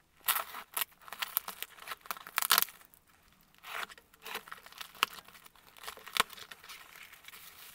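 Brown plastic packing tape being ripped and peeled off a cardboard parcel, with crinkling of the tape wrap: irregular rips and crackles, loudest about two and a half seconds in. A sharp click comes about six seconds in.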